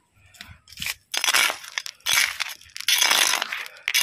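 Steel trowel scraping and turning a dry mix of sand, gravel and cement, in several gritty strokes with short pauses between them.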